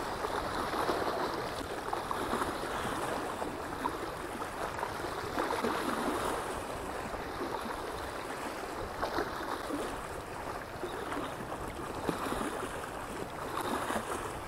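Small waves lapping and splashing against a stony reservoir bank, a steady wash of water that swells and eases every few seconds.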